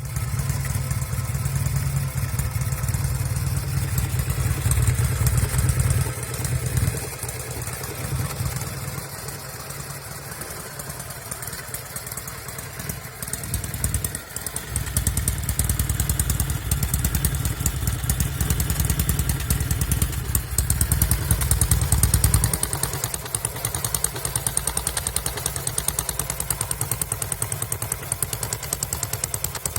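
1974 Norton Commando 850's air-cooled parallel-twin engine running through un-muffled silencers. It runs louder for the first six seconds and again from about fifteen to twenty-two seconds, and settles quieter in between and near the end. Occasional misfires come from the left cylinder, the side that is also smoking.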